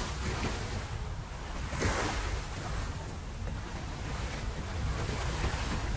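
Sea waves washing against a seawall, with wind noise rumbling on the microphone, and one louder surge of noise about two seconds in.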